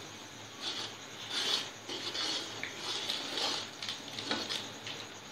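Slotted metal spoon stirring wet masala and scraping against the inside of a metal cooking pot, in uneven strokes.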